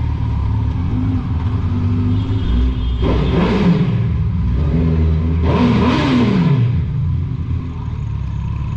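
Suzuki Hayabusa inline-four running through a Two Brothers Racing aftermarket exhaust, revved up and let back down twice, about three seconds in and again about five and a half seconds in, over a steady rumble, echoing in a short tunnel.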